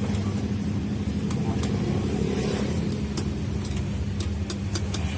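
Steady low mechanical hum, like an engine or motor running in the background, with a few short, light metallic clicks scattered through it.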